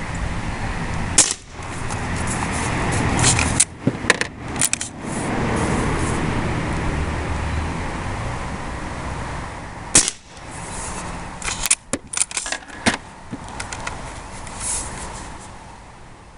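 Two shots from a CO2 lever-action BB rifle, a sharp pop about a second in and another about ten seconds in. Each is followed a couple of seconds later by a quick run of metallic clicks and clacks as the lever is worked to eject the dummy shell and chamber the next BB.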